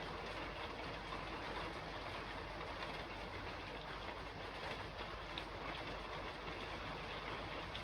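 Steady rain falling on a roof: an even, continuous hiss with a few individual drop ticks standing out now and then.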